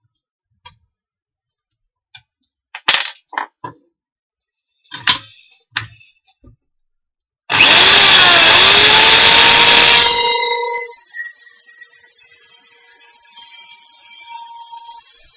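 Electric drill in a bench drill stand running for about three seconds as it bores into a wooden block, its pitch dipping briefly and recovering, then a fading whine as it spins down after being switched off. Before it, a few clicks and knocks as the block and drill are set in place.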